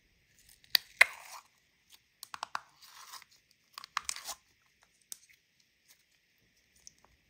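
Clear slime being poked and pressed with fingers in a plastic tub, giving sticky pops and crackles in several short bursts over the first four and a half seconds, then only a few faint clicks.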